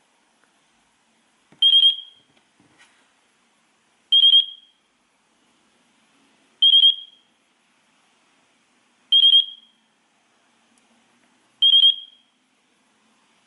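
Electronic radio-control beeper sounding a short, high-pitched burst of rapid pips about every two and a half seconds, five times, while the transmitter and quad are in binding mode.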